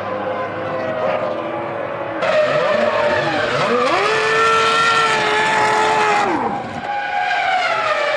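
Formula One cars' 3-litre V10 engines at high revs. The engine pitch falls, then after an abrupt change rises about three and a half seconds in, holds high and drops again a little after six seconds.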